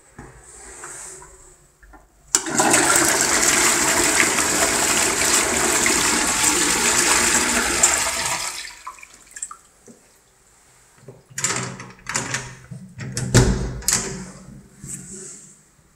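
Toilet flushing: a sudden loud rush of water starting about two seconds in, running for about six seconds and then fading. Later comes a series of clicks and knocks, the loudest a heavy thump, from handling the stall door's lock.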